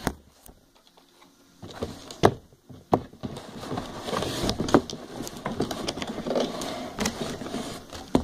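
Close handling noise as a plastic Nerf blaster is worked into its cardboard box insert: two sharp knocks a couple of seconds in, then several seconds of scraping and rubbing with a few clicks.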